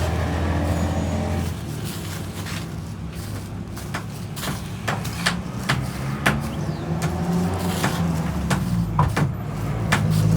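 Engine running at a steady level, its pitch shifting up and down, with scattered sharp knocks and clacks throughout.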